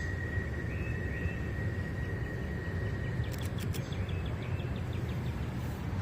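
Outdoor rural ambience: a steady low rumble under rows of short, rapid, evenly spaced high chirps and a steady high whine, with a few sharp clicks about halfway through.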